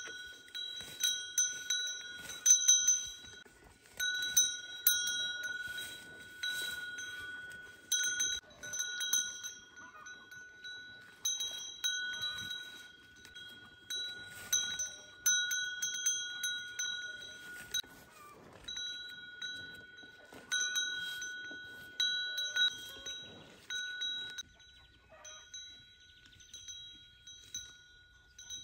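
A small metal bell ringing again and again at irregular intervals, about once or twice a second, each strike sounding the same clear tone and dying away. The strikes grow fainter near the end.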